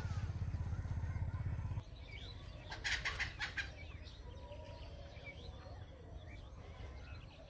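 Birds calling outdoors: a few short, loud calls about three seconds in and many small chirps throughout. A low rumble covers the first two seconds and stops abruptly.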